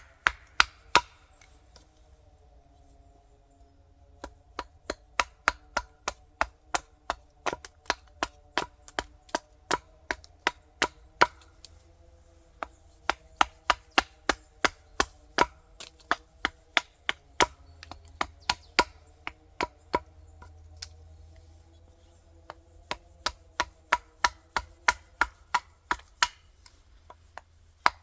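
Quick, light axe strikes on green wild cherry wood, about two to three a second, as a coffee-scoop blank is hewn. The strikes pause twice, a few seconds after the start and again near the end, while a faint steady drone runs underneath.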